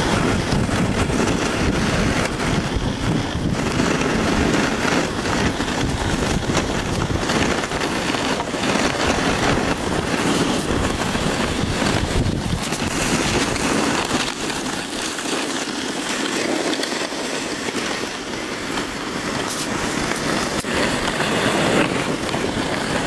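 Wind buffeting a body-worn camera's microphone, mixed with the crunch and scuff of snowshoes stepping down a snowy slope. The low rumble eases for a few seconds about two-thirds of the way through.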